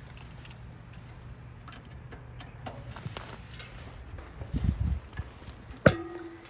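Work-handling noises at an HVAC unit: scattered small clicks and knocks over a steady low hum, a dull thud about three quarters of the way through, then one sharp metallic clank near the end that rings briefly, like a tool or part striking sheet metal.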